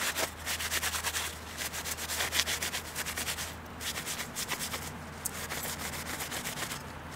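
Paper towel rubbing over the titanium panels of a Firebox Freestyle folding stove in quick scrubbing strokes, wiping them down, with a couple of brief pauses.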